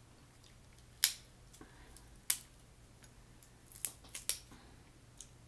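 Snow crab legs being snapped and cracked apart by hand, the hard shell giving several sharp cracks, with the last few close together about four seconds in.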